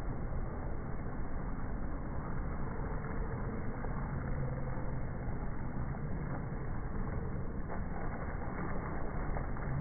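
Steady low rumble and hiss of outdoor noise, with a faint hum that comes and goes in the middle.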